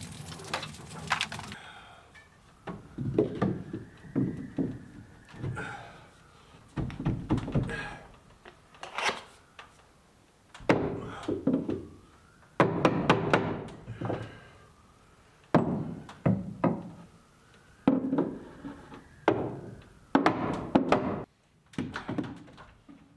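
Hammer blows on wooden framing: clusters of sharp wooden thunks and knocks every second or two, as blocking is nailed in between studs.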